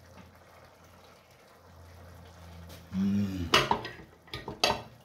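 Pots simmering faintly on a gas stove, then about three seconds in a man's short wordless voiced sound, followed by a few sharp clicks and smacks.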